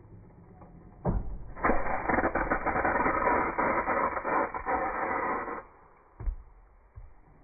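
A cracked espresso filter basket bursts under pump pressure in a Meticulous Home machine's portafilter, with a sudden bang about a second in. Loud hissing spray of water and coffee follows for about four seconds and cuts off suddenly. A single thump comes near the end.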